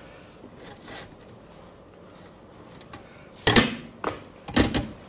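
Roast duck being carved and torn apart: faint rustling, then three or four loud, sharp crackling knocks bunched together in the second half.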